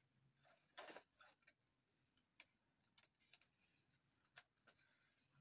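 Faint, irregular rustles and ticks of construction paper being handled as a strip is woven through the slits of a paper sheet, the loudest rustle about a second in.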